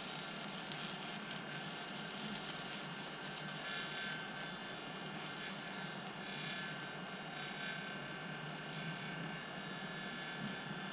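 Steady whir of a small electric blower, like the fan of a hot-air soldering station, running evenly with a few faint high tones over it.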